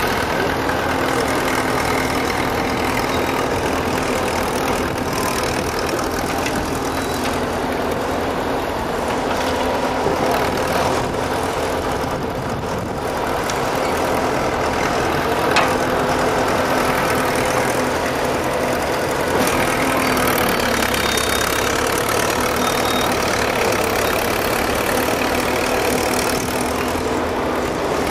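The engine of a Menck M40 cable excavator with a backhoe bucket runs steadily while the machine digs and loads. A single short, sharp knock comes a little past halfway.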